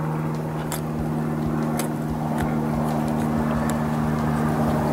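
A motor runs with a steady, unchanging hum, joined by a few light clicks.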